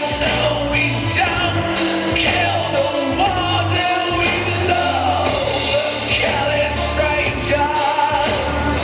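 Music: a pop song with a sung vocal line over a steady, heavy bass.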